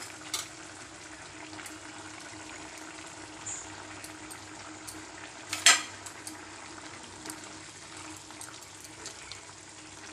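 Chickpea and potato curry simmering in a kadai on a gas flame, a steady bubbling sizzle with small pops, over a faint low steady hum. One sharp click stands out a little past halfway.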